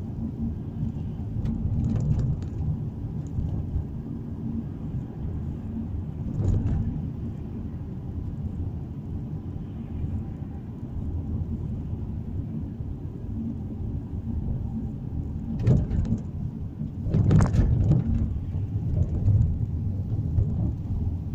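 Road noise inside a moving car's cabin: a steady low rumble of tyres and engine. A few short knocks break through, the loudest cluster about three quarters of the way in.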